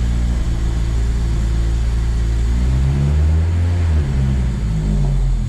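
Honda Civic engine running, with the revs rising briefly around the middle and settling back, while a freshly installed, rebuilt K-series transmission is being run in to work fluid through it.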